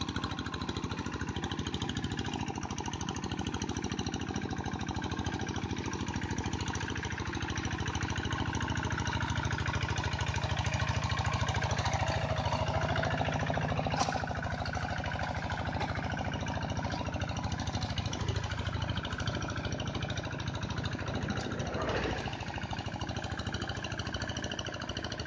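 Kubota walking tractor's single-cylinder diesel engine running steadily under load with an even, fast beat as it tills a flooded paddy, growing louder as it comes close in the middle, with a sharp click about fourteen seconds in.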